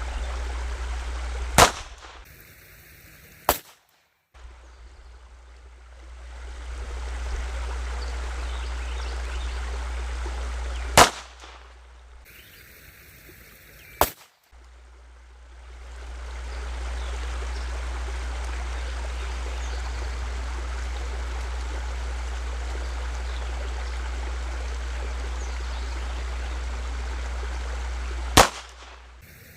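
Five single .22 LR pistol shots fired a few seconds apart, slow aimed fire from a Glock with an Advantage Arms .22 LR conversion kit. Between the shots there is a steady rumble of wind on the microphone.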